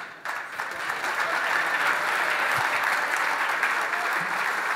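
Audience applauding, starting a moment in, swelling over the first second and then holding steady.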